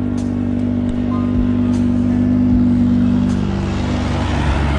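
Motor vehicle engine running steadily, its tone shifting about three and a half seconds in, followed by a growing rush of road noise near the end.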